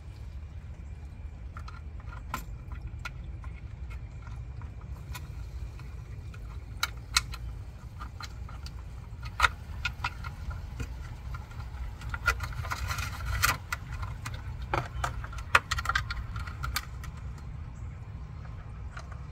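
Scattered clicks and light rattling of plastic parts as a water softener's control valve is handled and worked on by hand, busiest about two-thirds of the way through, over a steady low rumble.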